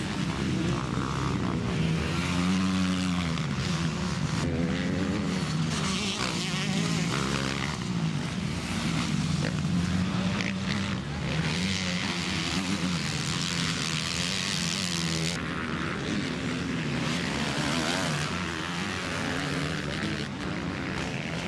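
MX2-class motocross bikes racing on a dirt track, engines revving up and down with the pitch rising and falling through throttle and gear changes.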